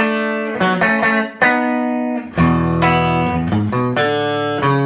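Electric guitar, a 1959-style Telecaster with neck and bridge pickups in parallel, played clean through a 5F4 amplifier with no effects. Chords and notes are struck about five times, each left to ring into the next.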